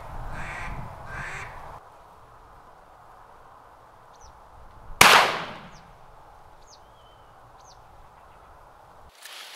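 Three short calls in quick succession, then about five seconds in a single loud shotgun shot with a short echo. Faint high chirps of small birds come after it.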